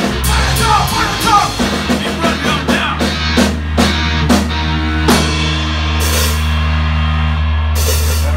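Live rock band of electric guitar, bass guitar and drum kit playing loud. A steady drum beat drives the first five seconds or so; then the drums drop out and a chord rings on over a held low bass note, with a cymbal crash near the end.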